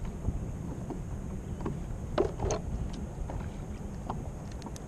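Steady low rumble of wind and water around a small canoe on open water, with a few faint clicks about two seconds in as fishing line and hook are handled.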